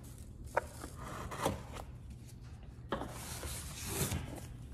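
A blade slitting the packing tape along the sides of a cardboard shipping box, with gloved hands scraping and rubbing the cardboard. A few light knocks come as the box is handled, and a longer scrape runs through the second half.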